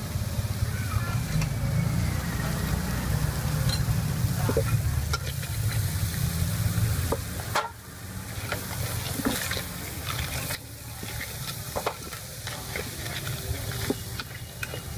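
Crab pieces with salted egg sizzling in a metal wok on a portable gas stove, stirred with a metal spoon that clinks and scrapes against the pan. A low rumble underlies the first half and drops away about halfway through.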